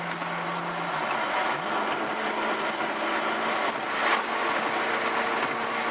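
Ferrari F430's 4.3-litre V8 with a Meisterschaft race exhaust, heard from inside the cabin and running at a steady note. The pitch drops about a second in, then rises and holds steady again.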